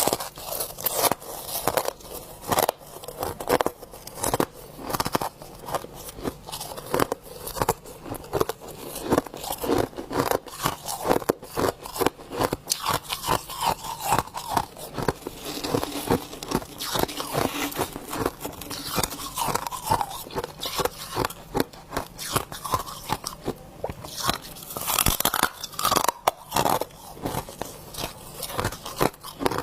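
A person biting and chewing crunchy frost ice, close to the microphone: a continuous run of crisp, irregular crunches, several a second.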